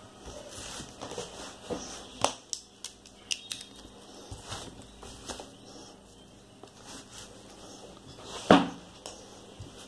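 Clipboard and paper being shifted on a desk: scattered clicks and rustles, with one louder thump about eight and a half seconds in.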